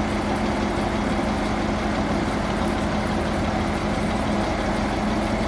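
Heavy engine running steadily at a constant idle, with an even low hum that does not change.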